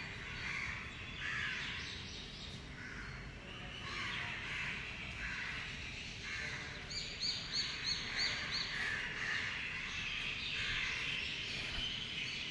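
Birds chirping and calling throughout, many short calls overlapping. About seven seconds in, one bird gives a quick run of about six high chirps.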